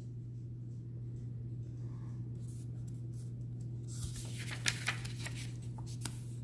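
Pages of a paperback tarot guidebook being turned: a soft paper rustle with a few light ticks about four to six seconds in, over a steady low hum.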